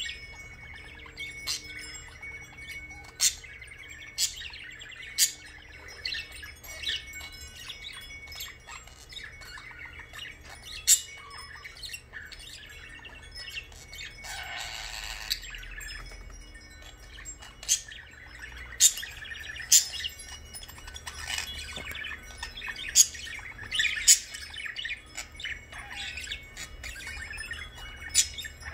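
Blue budgerigar chattering: a continuous warble broken by sharp, high chirps, some much louder than the rest, scattered throughout.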